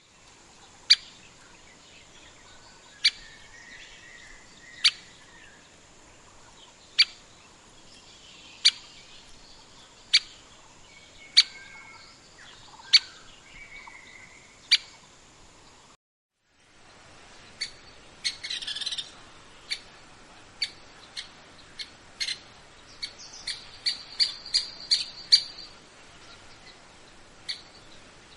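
Grey-capped pygmy woodpecker giving sharp, single short call notes, one every second and a half to two seconds. After a brief dropout the calls come quicker, bunching into a close series near the end, with faint whistles of other birds behind.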